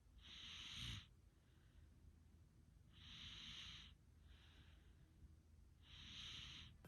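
A sleeping person snoring faintly in a slow, even breathing rhythm. There are three breathy snores about a second long, roughly three seconds apart, each followed by a softer, shorter breath.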